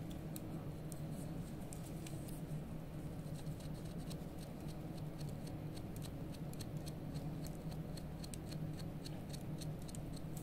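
A metal wax carver scraping and shaving a block of blue dental carving wax, heard as a quick run of small scratchy ticks, a few a second, over a steady low hum.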